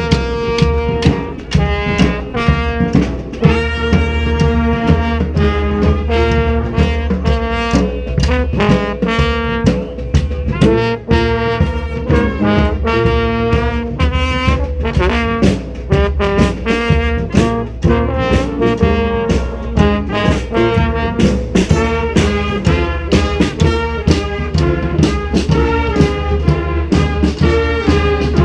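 Street brass band playing a loud, upbeat tune, horns in several parts over a steady percussion beat.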